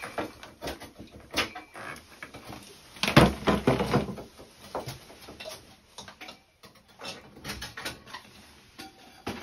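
Irregular clicks and knocks of handling, with a louder rattling clatter about three seconds in, lasting about a second.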